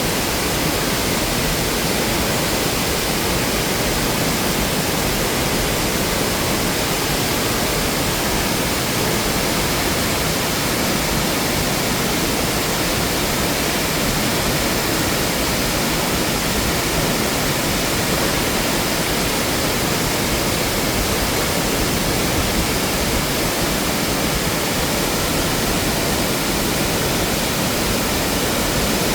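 Ōko Falls, a large waterfall, making a steady, unbroken rush of falling water that holds the same level throughout.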